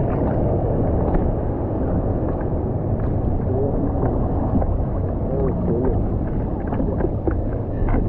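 Seawater sloshing and lapping around a surfboard, with wind rumbling on the microphone: a steady wash of noise with a few small splashes.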